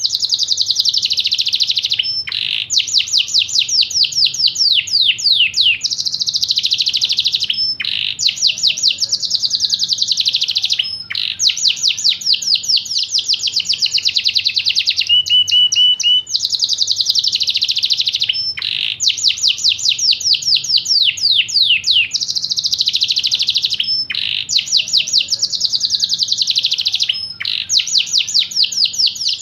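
Yorkshire canary singing: long, fast runs of rapidly repeated notes and rolling trills, in phrases broken by short pauses every couple of seconds.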